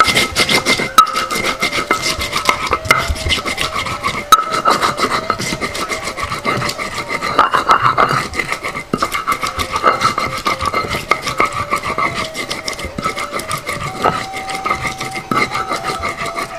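Stone pestle rubbed back and forth on a flat stone grinding slab, crushing turmeric and ginger with salt into a paste: a quick, rhythmic rasping scrape of stone on stone.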